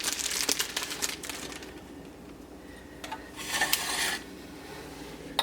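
Small hard replacement parts being handled and clinking together, with light clicks and rustling in the first second or so and a brief clatter about three and a half seconds in.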